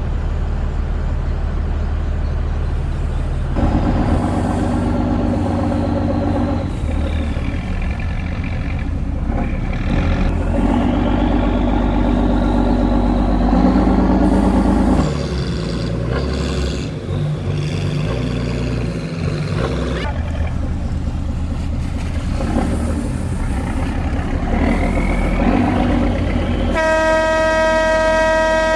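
Boat engine running steadily, with several horn blasts over it, the last a long, high, steady blast near the end.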